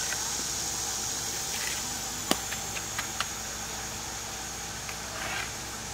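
Steady high insect drone. A sharp tap comes a little over two seconds in and two lighter taps follow around three seconds in, as hand tools work the fresh concrete slab.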